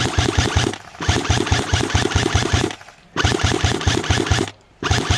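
Airsoft electric gun (AEG) firing on full auto: a rapid, even mechanical rattle of shots in four bursts, each about a second or more long, with short pauses between them.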